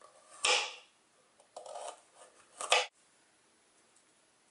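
Kitchen knife cutting through a raw carrot and striking a wooden cutting board: two sharp chops, about half a second in and again a little over two seconds later.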